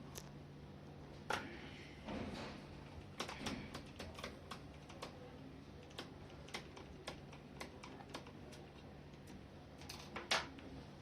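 Small screwdriver working screws out of the plastic case of a Compaq Presario V3000 laptop: irregular light clicks and ticks with brief scrapes, and a sharper click about a second in and another near the end.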